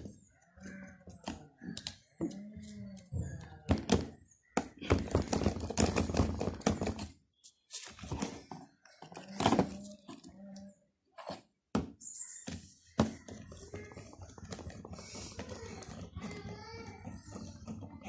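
Irregular clicks and knocks of a screwdriver and stiff wires being worked into the screw terminals of an electrical contactor. A steadier low background noise runs through the last few seconds.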